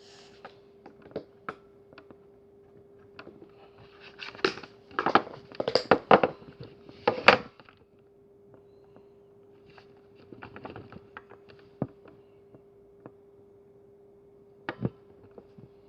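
Handmade slime being squeezed and poked by hand, giving sticky clicks and pops that come thickest about four to seven seconds in, then sparse, with a steady faint hum underneath.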